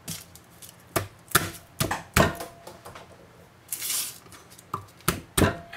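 A chef's knife and garlic cloves knocking and tapping on a wooden cutting board while the cloves are crushed and peeled: a string of irregular knocks, with a short scraping rustle about four seconds in.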